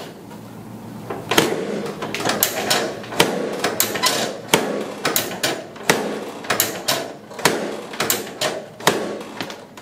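An irregular run of sharp mechanical clicks and knocks, about two to three a second, starting about a second in.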